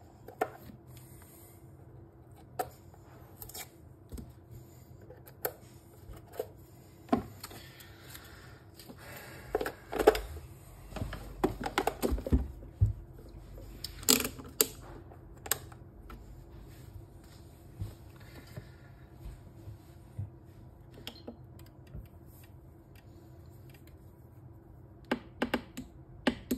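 Scattered clicks and knocks of hands handling a Megger multifunction tester at a wall socket: plugging its test lead in and turning its rotary selector dials. The clicking is busiest about halfway through.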